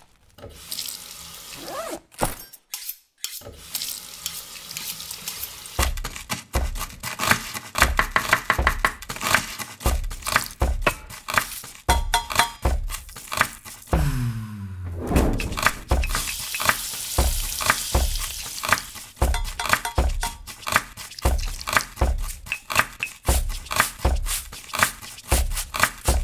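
Kitchen food-preparation sounds, with running water and short knocks and clinks, cut over a music track. A steady low beat of about two a second comes in around six seconds in, and a falling sweep sounds about halfway through.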